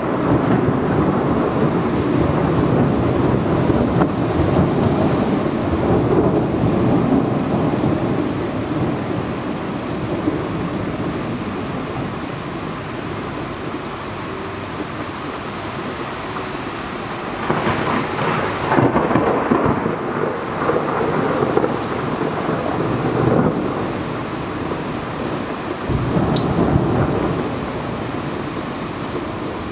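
Steady rain during a thunderstorm, with rolling thunder rumbling low through the first part. A quieter lull follows, then several louder rushing swells in the second half.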